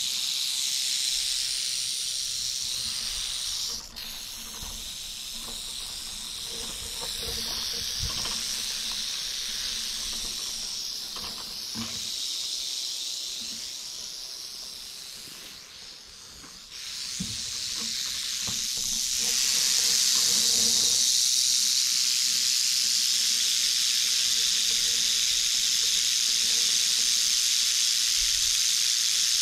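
Timber rattlesnake rattling its tail in a continuous high buzz. It breaks off briefly about four seconds in, fades lower through the middle, then comes back louder for the last ten seconds. It is a defensive warning from the snake at being handled.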